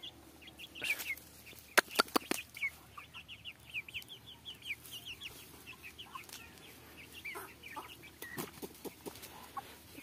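Young aseel chickens calling in a run of short, falling high chirps, several a second, with a few sharp clicks about two seconds in.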